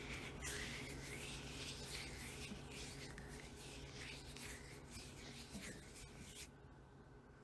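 Irregular scratching and rubbing noises over a steady low hum, stopping about six and a half seconds in.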